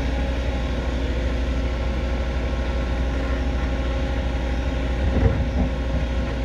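Diesel engine of a tracked excavator running steadily under load as the bucket works the creek bed, with a single louder knock or scrape about five seconds in.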